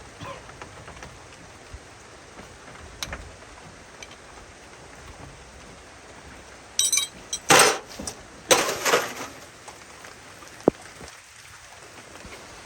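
Steady rain hiss, broken about seven to nine seconds in by a run of loud clattering noises and a few sharp clinks.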